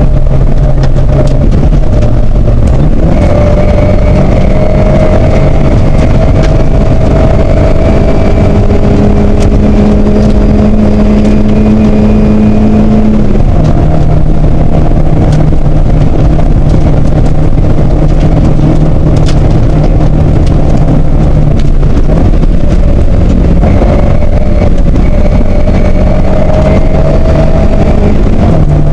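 Toyota Corolla KE55 rally car's engine driven hard, heard from inside the cabin on a gravel stage. The engine holds a steady pitch, and the pitch drops and climbs again a few times, over a constant rush of tyre and road noise with occasional sharp ticks.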